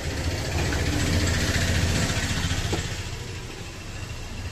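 A motor vehicle's engine passing on the road, a low rumble that grows louder over the first two seconds and then fades away.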